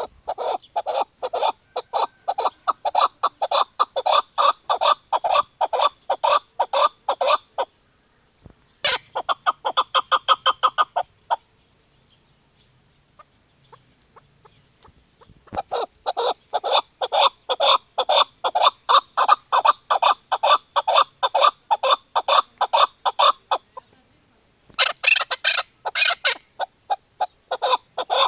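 Female chukar partridge calling: long runs of rapid clucking calls, about four a second, in four bouts broken by short pauses.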